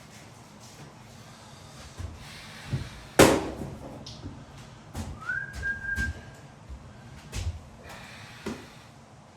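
A handful of sharp knocks and clicks from hands-on work, the loudest about three seconds in, and a short whistle-like tone that rises and then holds for about a second in the middle.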